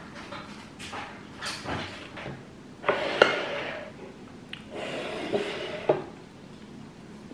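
Wooden chopsticks clinking and scraping against a ceramic rice bowl, a cluster of taps about three seconds in and another near six seconds, each clink followed by a brief ring from the bowl.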